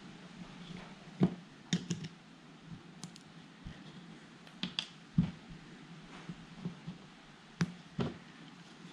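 Light, sharp clicks and taps, about eight of them at irregular intervals, of a small hand tool and plastic and metal parts knocking against a fishing spinning reel as its covers are worked off during disassembly.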